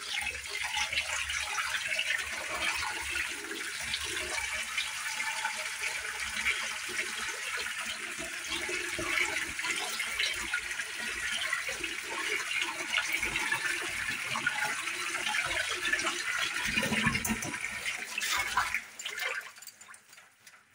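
Cold tap water running in a steady stream onto boiled noodles in a steel colander in a sink, splashing as the noodles are rinsed. The water stops near the end.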